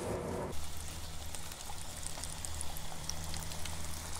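Faint, steady sizzle of hot oil in an electric deep fryer, with scattered small crackles over a low steady hum.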